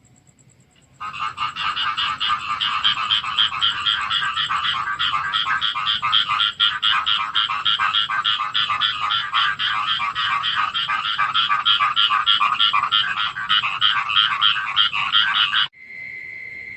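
Chorus of frogs croaking after rain: a loud, fast run of evenly repeated pulsed calls that starts about a second in and cuts off suddenly near the end.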